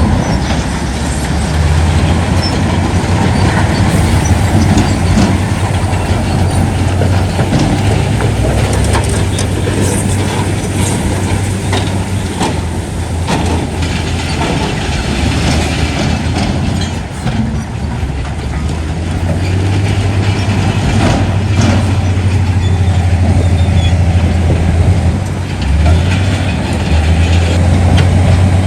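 Heavy diesel earth-moving machinery running, a steady deep engine drone with scattered clanks and knocks.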